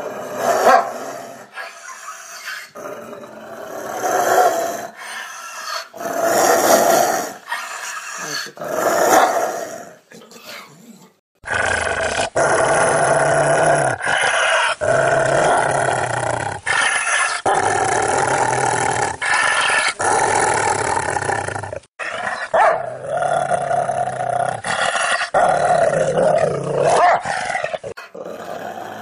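Rottweiler growling and barking: separate short outbursts for the first ten seconds or so, then, after an abrupt change in the recording, a long, nearly unbroken stretch of growling and barking.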